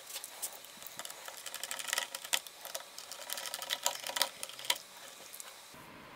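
A hand screwdriver driving a screw through a rubber support foot into a plastic speaker housing: a quick, irregular run of small clicks that stops about five and a half seconds in.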